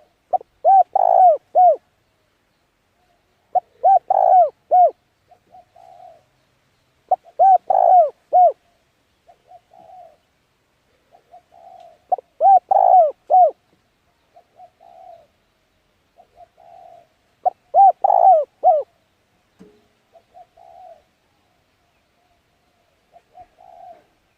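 A dove cooing in repeated phrases: five loud bursts of three or four arching coos, one about every four seconds, with softer coos in between.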